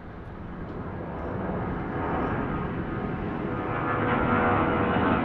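Delta Boeing 757-232's Pratt & Whitney PW2037 turbofans at climb power just after takeoff, a jet engine rush growing steadily louder as the airliner closes in, with a whining tone coming in over the second half.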